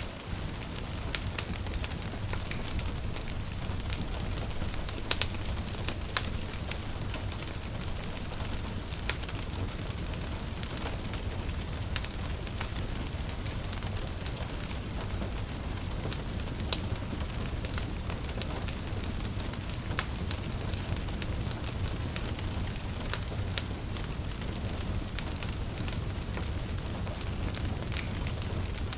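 Wood fire in a fireplace crackling, with frequent irregular sharp pops over a steady low rumble, and gentle rain falling.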